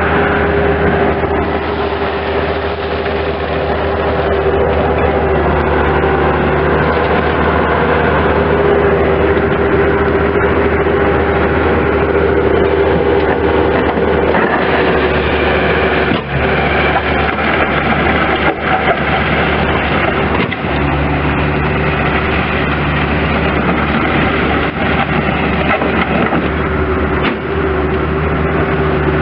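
2005 Bobcat S185 skid steer loader's four-cylinder diesel engine running steadily, with a steady whine above the engine note and a few brief dips in loudness in the second half.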